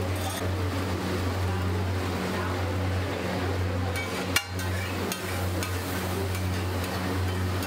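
Egg batter sizzling on a hot flat iron griddle (tawa), over a steady low hum. A single sharp clack about four and a half seconds in, as the metal spatula strikes the griddle while scraping.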